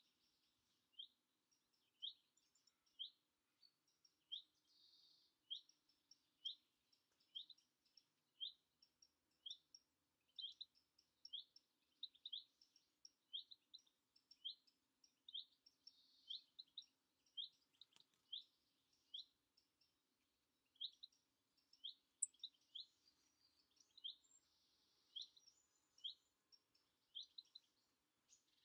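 A small songbird repeating one short, rising call about once a second, with other birds calling faintly in between.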